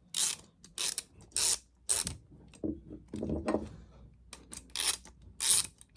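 A hand tool working the bolt that holds the arm on an Arrow 303 door closer: a run of short ratcheting strokes about every half second, in two groups with a pause between them.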